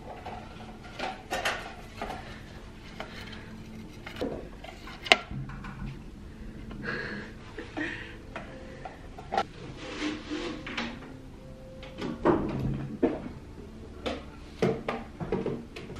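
Scattered knocks, clicks and rubbing of a plastic container with a snap-on lid being handled and carried around, with one sharp click about five seconds in and a cluster of knocks near twelve seconds.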